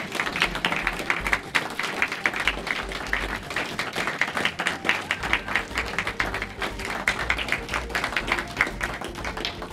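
Audience applauding: many people clapping.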